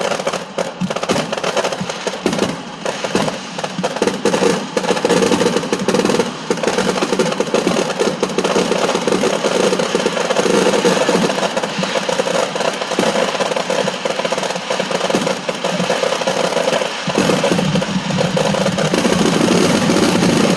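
Firecrackers and fireworks crackling in a dense, continuous barrage, with rapid overlapping pops and no pause.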